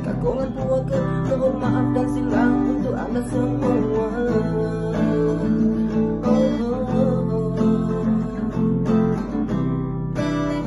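Background music led by acoustic guitar, strummed chords and picked notes.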